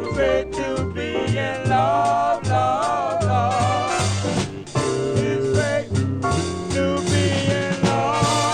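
A vocal-group record playing: a stretch with no lyrics, the band carrying the tune with pitched lines over a steady beat.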